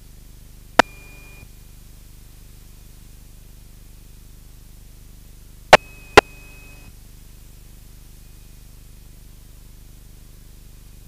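Aircraft radio and intercom audio: a steady low hiss and hum, broken by three loud sharp clicks, one about a second in and two close together around six seconds, with a short high tone after the first and the last, like radio keying and squelch breaks.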